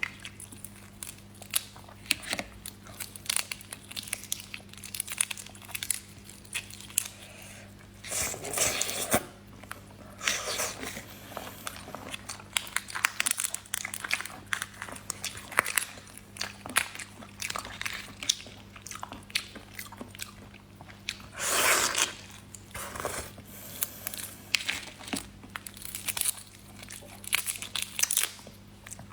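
Close-miked chewing and biting of shrimp, with many wet mouth clicks and louder crunches about 8 seconds in and again about 22 seconds in. A faint steady low hum runs underneath.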